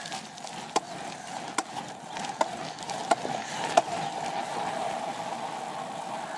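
Footsteps walking on a hard surface: sharp, evenly spaced steps about one every 0.8 s that stop about four seconds in, over a steady hum.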